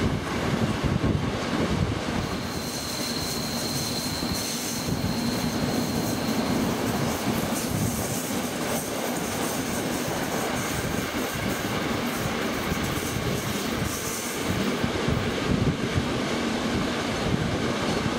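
A locomotive-hauled passenger train running along the track, heard from an open carriage window: a steady rumble of wheels on rails with rushing air. A few seconds in a thin high wheel squeal sounds for about four seconds as the train takes a curve.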